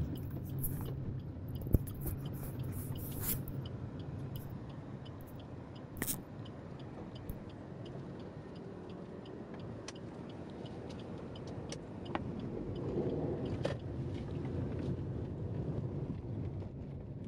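Inside a car's cabin while it drives slowly: a steady low engine and road hum, broken by a few sharp clicks.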